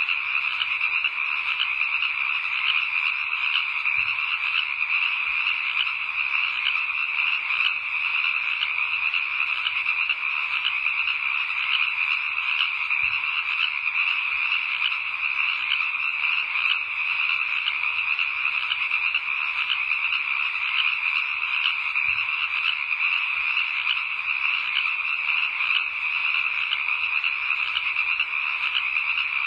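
Night ambience of a dense, unbroken chorus of frogs calling, a steady high trilling with no pauses.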